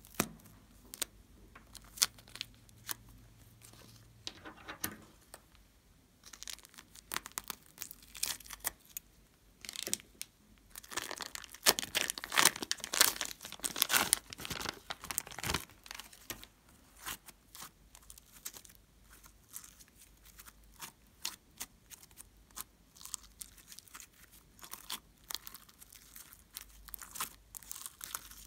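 Thin plastic piping bag crinkling and tearing as it is squeezed and peeled off yellow foam slime, with the slime crackling and squishing in the hands. A dense run of crackles and rustles, loudest and busiest about halfway through.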